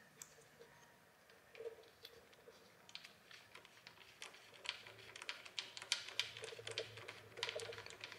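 Faint metal clicking from a small ratchet and socket, in short irregular runs, as the timing belt tensioner bolt on a Toyota 2JZ engine is run in and snugged by hand. It starts about three seconds in and grows busier toward the end.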